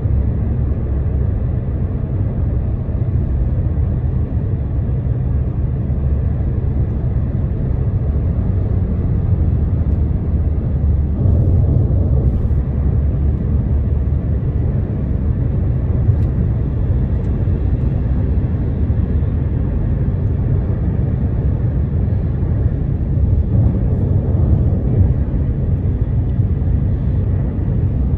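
Steady low rumble of road and tyre noise inside a car's cabin while driving at motorway speed.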